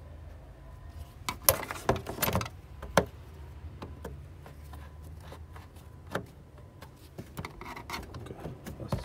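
A series of sharp clicks and small rattles, clustered in the first few seconds and recurring a few times later, over a low steady hum.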